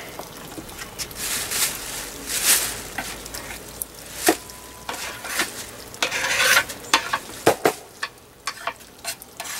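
Plastic garbage bag rustling and crinkling in bursts as fish scraps are pushed into it, with scattered sharp clicks from the handling.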